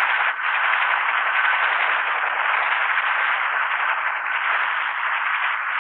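Bell AH-1 Cobra attack helicopter in flight: a steady rushing noise with no clear rotor beat, dipping briefly about a third of a second in.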